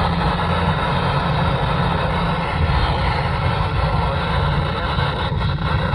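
Loud, steady hiss and rumble of radio static from a weather radio receiver tuned to a NOAA Weather Radio broadcast.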